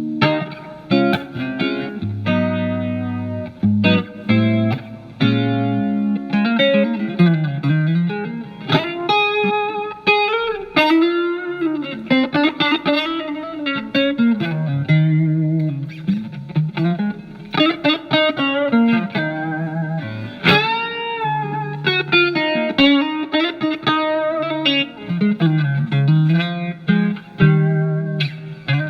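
Electric guitar, a Telecaster with alnico single-coil pickups, played through a Marshall MG15FX amplifier's clean channel with its chorus effect on. The playing mixes picked single notes and chords with several string bends.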